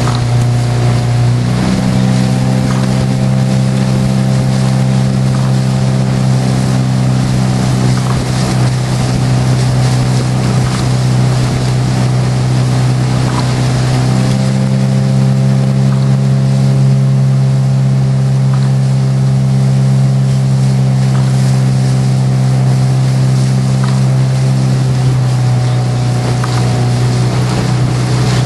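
Small motorboat's outboard motor running steadily at cruising speed as the launch keeps pace alongside a rowing shell. The engine note shifts slightly about a second and a half in and again about halfway through.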